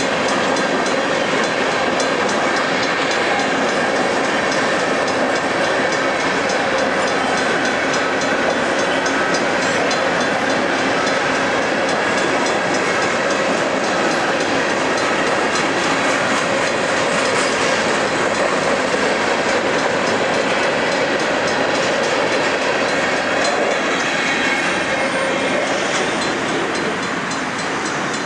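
Covered hopper cars of a freight train rolling past, a steady noise of steel wheels running on the rails that eases off a little near the end as the last cars go by.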